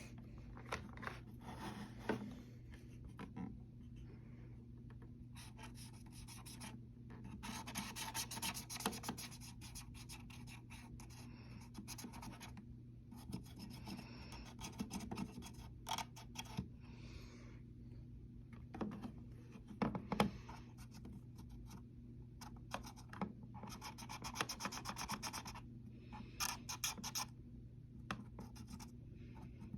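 Scratching, rasping strokes in several bursts of a few seconds each, with scattered sharp clicks and knocks, over a steady low hum.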